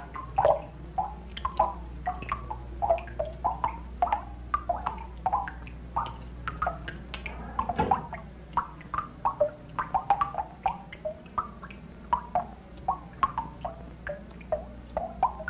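Water dripping in quick, irregular drops, about three a second, each a short pitched plink, over a steady low hum.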